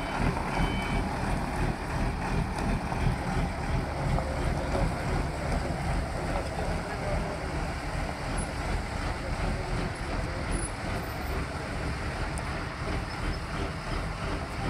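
Diesel engine of an ACE AF100D 10-ton forklift running steadily as the loaded forklift drives off carrying a large crate.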